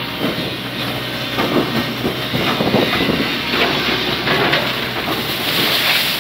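Kobelco mini excavator's diesel engine running steadily while its arm paddles through the water, with churning water and irregular splashes and clanks.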